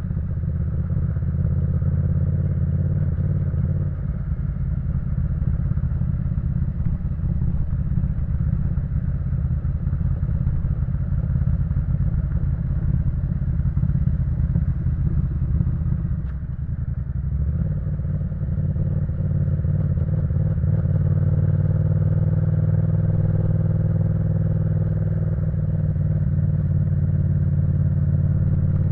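Yamaha MT-07's parallel-twin engine through an Akrapovic full exhaust system, heard from the bike while riding. The note shifts about four seconds in, dips briefly a little past halfway as the throttle eases, then runs on steadily and a little louder.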